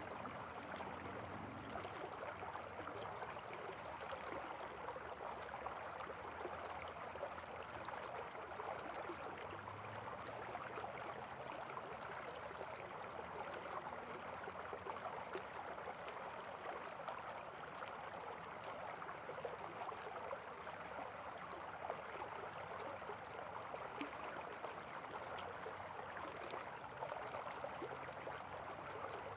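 Faint, steady flowing water, like a stream running over rocks.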